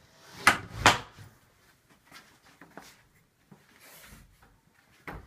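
Two sharp knocks about half a second apart within the first second, followed by faint scattered clicks and taps.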